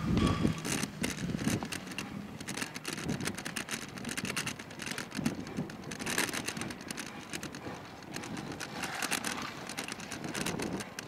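Kick scooter rolling along a paved bike path: a continuous rush of rolling and wind noise, broken by a dense run of irregular clicks and rattles, with uneven low rumbling surges.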